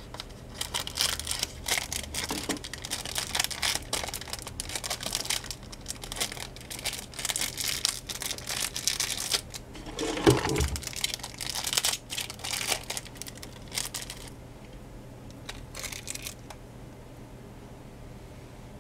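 Plastic packaging being crinkled and pulled open by hand as a bracelet is unwrapped. It makes a dense, irregular crackling that stops about three-quarters of the way through.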